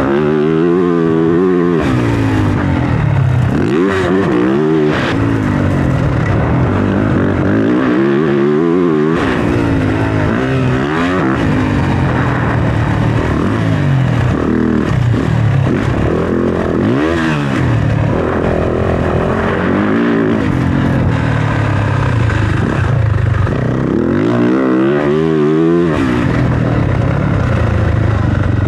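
Dirt bike engine being ridden hard around a motocross track, its pitch climbing and dropping again and again as the throttle is opened and shut.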